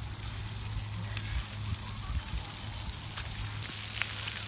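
Splash pad water jets spraying onto wet concrete, a steady hiss, with a few low rumbles.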